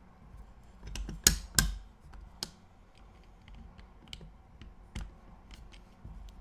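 Small metal parts of a mortise lock clicking and knocking as they are handled and pressed together during reassembly, with two sharp clicks close together about a second and a half in.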